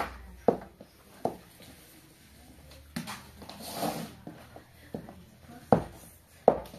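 A series of sharp knocks, about six of them, unevenly spaced, the loudest about three-quarters of the way through.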